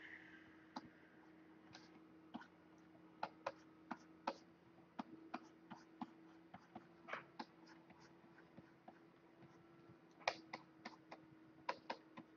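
Faint, irregular clicks and taps from computer keys and input device during digital painting, a couple a second with a quick cluster in the last few seconds, over a faint steady low hum.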